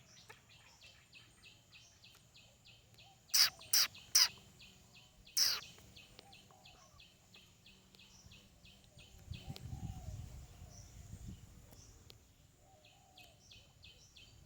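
An animal chirping: a steady train of short high chirps, about three a second, broken by four loud sharp calls a few seconds in. A low rumble rises briefly about two-thirds of the way through.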